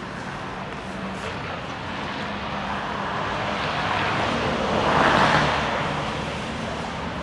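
A vehicle driving past on the street, its noise swelling to a peak about five seconds in and then fading, over a steady background of city traffic.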